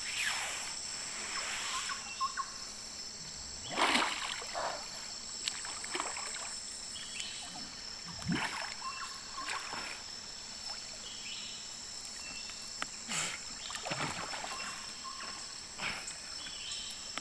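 River water splashing in short, irregular bursts, the loudest about four seconds in, over a steady high-pitched drone of insects.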